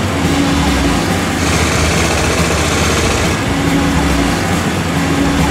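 Kasinski GTR Comet 250's V-twin motorcycle engine running as the bike rides by on a town street, with a louder, hissier stretch in the middle as it passes closest.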